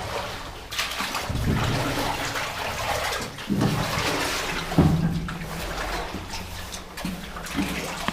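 Water splashing and sloshing in irregular surges, as of footsteps wading through a flooded tunnel.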